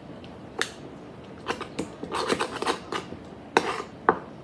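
A utensil clinking and knocking against a bowl in a string of short, irregular strikes while slime is being stirred.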